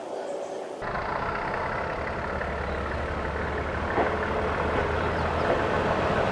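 A train's diesel engine running steadily, starting abruptly about a second in.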